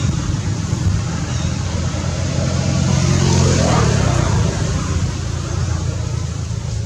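A motor vehicle's engine running steadily, growing louder about three to four seconds in as if passing close by, then easing off.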